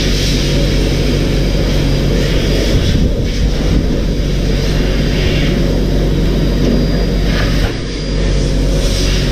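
Electric canister air blower running steadily: a loud motor hum under a rush of air, dipping briefly about eight seconds in.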